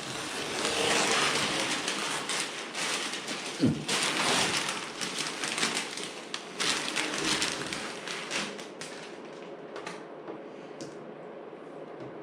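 Masking tape being peeled off a freshly painted scooter side panel: a dense crackling and ripping that dies down after about eight seconds to a few faint crinkles.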